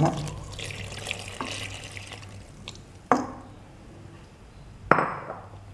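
A bowl of water poured into a stainless-steel dough-kneader bowl onto flour and semolina, running for about two seconds. Two sharp knocks follow, one about three seconds in and one near the end.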